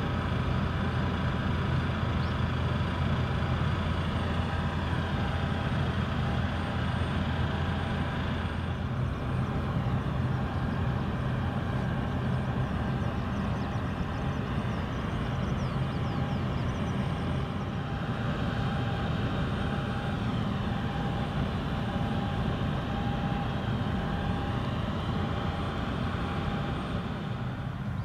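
Steady engine drone with a low rumble and a faint, even whine above it.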